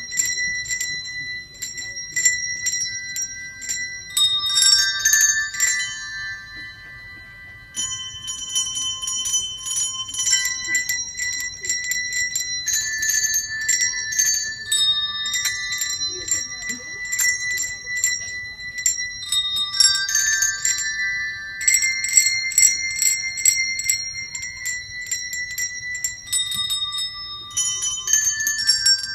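Children's handbells, one note per bell, ringing a simple tune together. Each note is shaken in quick repeated strokes and left to ring, and the playing thins out briefly about six seconds in.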